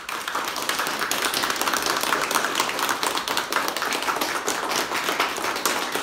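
Small group of people applauding: many hands clapping at once in a dense patter, beginning suddenly.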